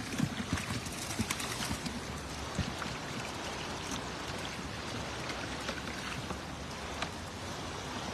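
A heap of freshly caught tilapia flapping and slapping against each other in a wet cast net on mud, with water dripping and trickling from the net. The patter of slaps is busiest in the first couple of seconds, then thins to a wet hiss with an odd tap.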